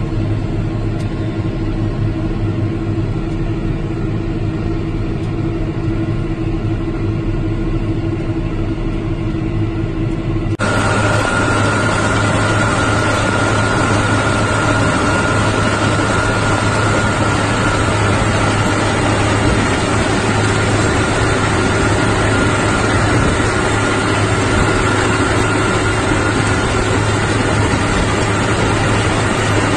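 John Deere tractor engine running steadily under load while its PTO drives a crankshaft spading machine with a seed drill. About ten seconds in, the sound jumps to a louder, hissier mix with a steady high whine.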